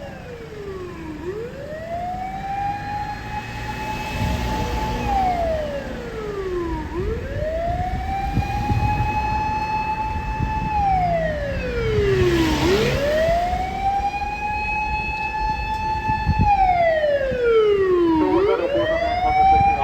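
Fire engine's mechanical motor siren wailing in long cycles: each time it winds up slowly, holds a steady high note for about four seconds, then slides down, about every six seconds, three times over. It grows steadily louder.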